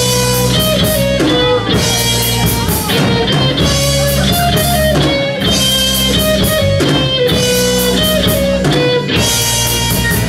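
Live rock band playing: a single-cutaway electric guitar over a drum kit with steady cymbal strikes.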